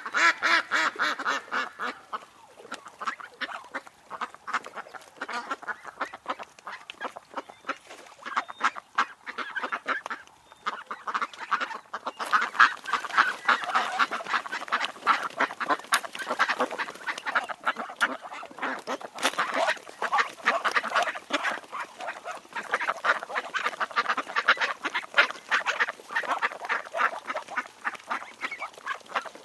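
Ducks quacking in rapid, overlapping calls that keep up almost without pause, with short lulls now and then.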